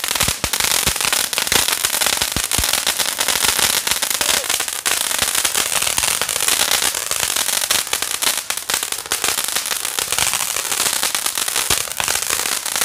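Hand-held 'Thunder Crackling' pencil firework burning: a steady loud hiss of the spark spray packed with rapid crackling pops.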